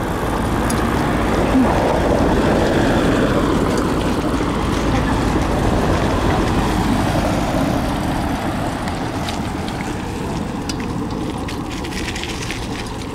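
Wind buffeting the microphone and the rumble of bicycle tyres rolling over paving stones while riding, louder in the first half and easing off after about eight seconds, with a few light clicks and rattles near the end.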